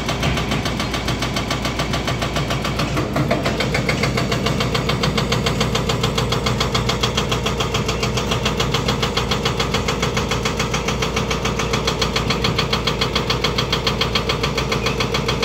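Hydraulic rock breaker on a Volvo EC210 excavator hammering into rock, a rapid, steady series of blows several times a second over the running diesel engine. The hammering grows louder about three seconds in.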